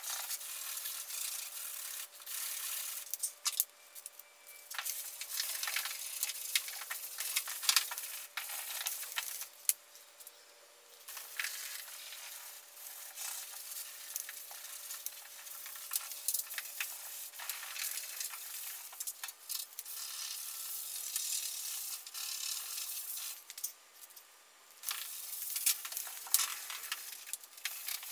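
Sandpaper on a hand sanding block rubbed back and forth over cured metal glaze filler on a car's steel lower quarter panel. It makes a scraping hiss in uneven strokes, with brief pauses.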